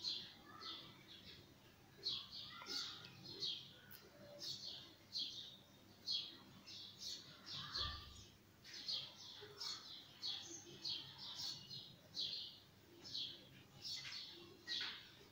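A small bird chirping over and over, faint, with short high chirps coming roughly one or two a second.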